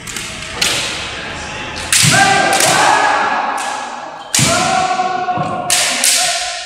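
Kendo practice: about eight sharp cracks and thuds of bamboo shinai strikes and stamping feet on a wooden floor, each echoing in a large hall. Two long, drawn-out kiai shouts are held over them, one starting about two seconds in and one just past halfway.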